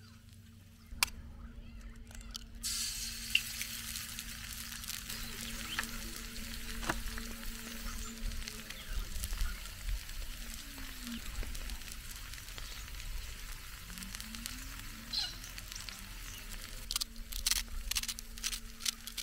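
Eggs sizzling as they fry in a non-stick paella pan over charcoal; the sizzle starts about two and a half seconds in, after a single click. Near the end comes a quick run of sharp clicks as seasoning is shaken or ground over the pan.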